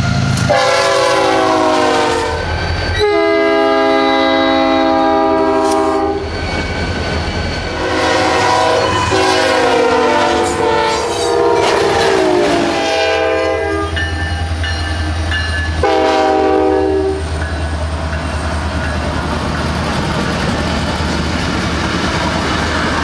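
Diesel locomotive air horns blowing about five long chord blasts, the fourth sliding down in pitch near its end, over the steady low rumble of the locomotives and passing train. After the last blast, near the two-thirds mark, only the train's rumble and rolling noise go on.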